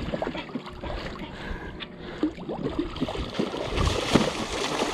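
A big jack crevalle thrashing at the surface beside the boat, with a loud splash about four seconds in, over steady wind and water noise.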